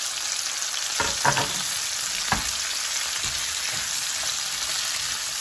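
Halved cherry tomatoes and garlic sizzling in hot olive oil in a nonstick skillet, stirred with a wooden spatula. A steady frying hiss, with a few short knocks of the spatula against the pan about one and two seconds in.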